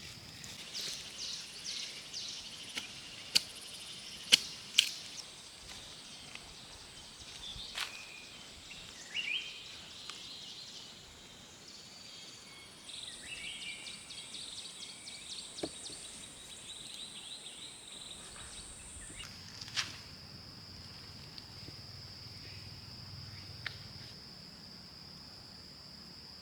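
Forest insects trilling steadily at a high pitch, the trill shifting higher for several seconds midway, with a few sharp knocks in the first five seconds and some short chirps.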